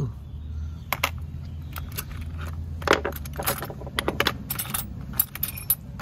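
Small metal hand tools (hex keys, picks, tweezers) clinking and rattling against each other and a plastic tool case as a hand sorts through them, in quick irregular clicks with a sharper clink about three seconds in. A low steady hum sits underneath for the first half.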